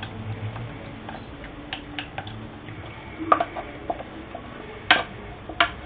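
A stirring spoon knocking lightly against a steel saucepan as milk is poured in and stirred, a few scattered short clicks and taps.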